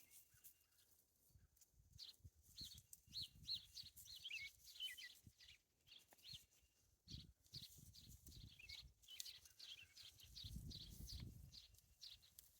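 Faint calls of small birds: a run of short high chirps and whistled notes, several dropping in pitch, starting about two seconds in. A low rumble comes in near the end.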